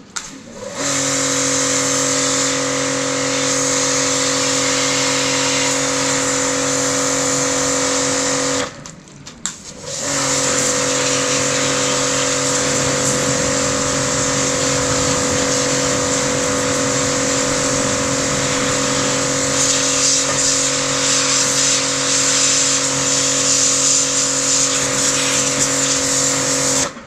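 Yodha YD 120 electric car pressure washer running: a steady motor hum with a hiss over it. It switches on about a second in, cuts off after about eight seconds, and starts again a little over a second later.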